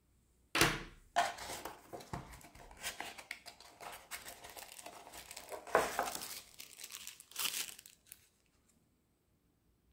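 Paper packaging crinkling and rustling as hands lift a car charger out of its cardboard box and handle the tissue paper around it. It starts suddenly about half a second in, with louder crackles near six seconds and near seven and a half seconds.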